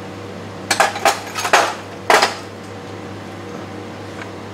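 Hand tools and metal parts clinking and scraping while a speedometer driven gear is worked loose from a transmission housing. There is a quick cluster of clatters about a second in and one more just after two seconds, over a steady low hum.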